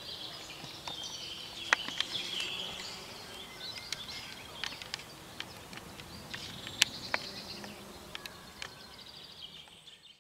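Woodland songbirds singing, a continuous chorus of chirps and warbles, broken by scattered sharp clicks, the two loudest about two and seven seconds in. The sound fades out at the very end.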